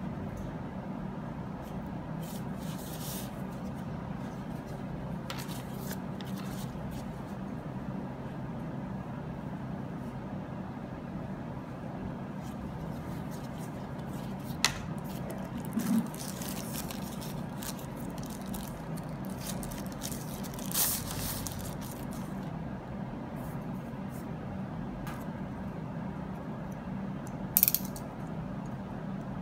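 Hands handling the packaging of a power bank: intermittent rustling of the cloth pouch and the clear plastic film being taken off the power bank, with a few sharp clicks and knocks, the loudest near the end, over a steady low hum.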